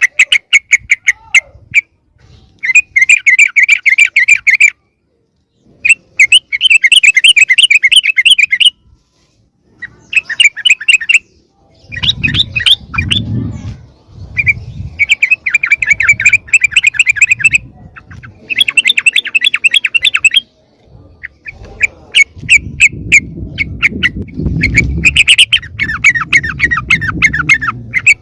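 Yellow-vented bulbuls (trucukan) giving harsh, rapid chattering calls in bursts of a second or three with short pauses between. This is the agitated, noisy call used as a lure to bring other bulbuls in. A low rumble runs underneath in the second half.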